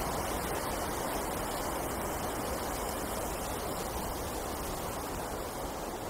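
Winter wind blowing steadily through forest trees, a continuous rushing with a low rumble beneath it.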